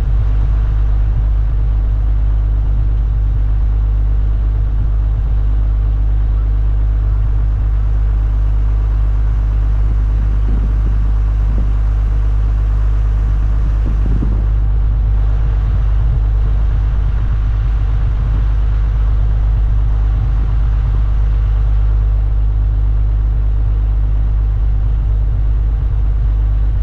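Engine running steadily, a constant low rumble that does not change pitch, with a few faint knocks around the middle.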